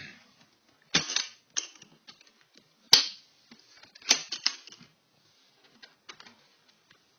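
A toolbox being handled and opened: a few sharp clicks and knocks, the loudest about three seconds in, then a quick run of rattles and fainter small knocks.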